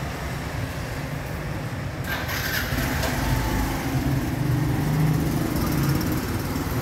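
A motor vehicle engine running over steady street traffic noise, getting louder past the middle.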